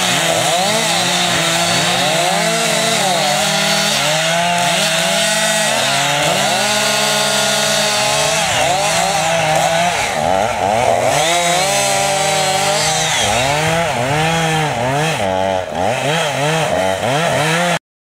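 Petrol chainsaw engine revving up and down again and again, its pitch rising and falling, then cutting off abruptly near the end.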